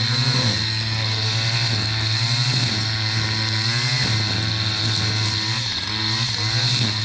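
Stihl FS 461 C-EM two-stroke brushcutter running near full throttle, its engine note wavering up and down as the cutting head meets the vegetation, with a steady high whine over it.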